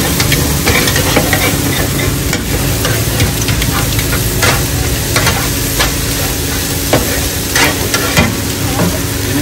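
Food sizzling as it fries in a hot pan, stirred and scraped with a metal spatula that gives sharp taps against the pan about once a second.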